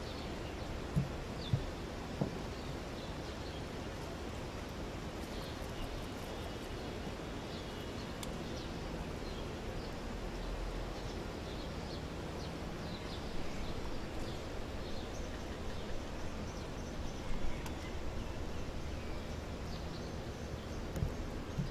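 Steady outdoor background noise with faint, scattered bird chirps and a few soft clicks.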